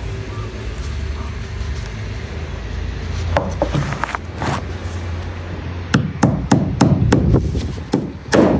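Claw hammer driving 13mm clamp nails through a GRP drip trim into an OSB roof deck. There are a few separate taps, then a quicker run of blows in the second half, the loudest near the end.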